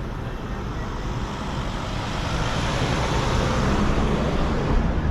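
A car driving slowly past close by, its engine and tyre noise swelling to its loudest about four seconds in.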